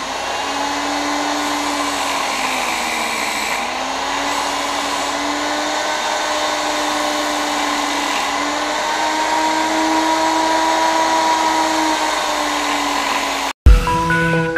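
Electric chainsaw-chain sharpener running, its small grinding wheel grinding the cutters of a chainsaw chain tooth by tooth, with a steady motor hum whose pitch sags briefly a few seconds in and then recovers. Near the end it cuts off abruptly and electronic music starts.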